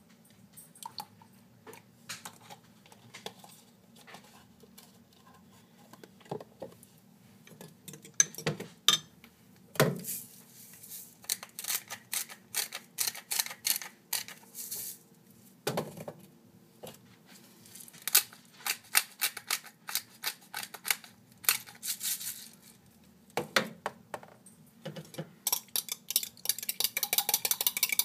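Metal spoon clinking and knocking against a glass measuring cup as egg whites are stirred in it, in irregular strokes that come thicker after about eight seconds. Near the end the clinks speed up into a fast, even run as the eggs are beaten.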